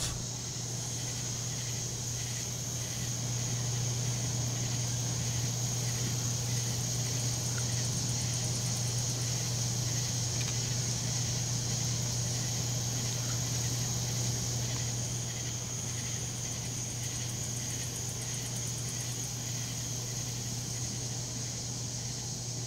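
Evening chorus of crickets and other night insects, a steady high-pitched trilling, over a continuous low hum.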